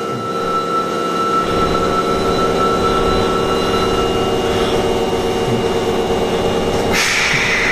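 Osaka Metro Tanimachi Line 22 series subway car 22618 running, with steady electrical whine tones over a pulsing hum; a high whine fades out about halfway through. Near the end comes a sudden loud hiss.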